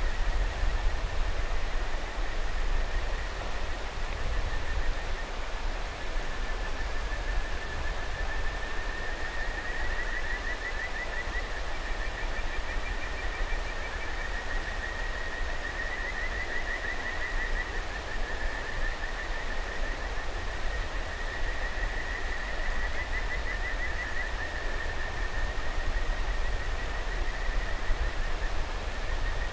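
Kajika frogs (Buergeria buergeri) singing a continuous chorus of high whistled trills that rise and fall in pitch, over the steady rush of a mountain river.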